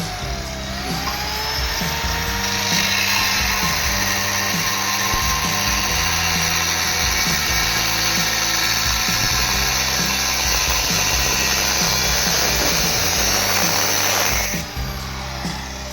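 Angle grinder cutting into the metal of a motorcycle silencer, spinning up about half a second in, running steadily, and stopping near the end. Background music plays underneath.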